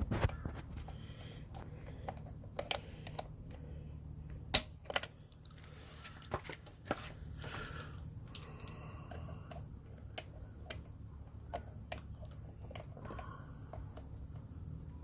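Irregular sharp metallic clicks and taps of pliers working the master link onto a motorcycle X-ring drive chain, over a steady low hum.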